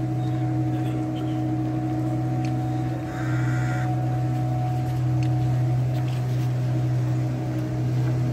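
A motorboat engine runs steadily with an even drone, heard from on board the boat. A brief higher-pitched call sounds about three seconds in.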